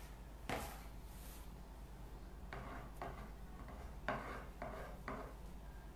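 Metal palette knife scooping whipped cream out of a mixing bowl and spreading it on a cake: a series of faint, short scrapes and taps.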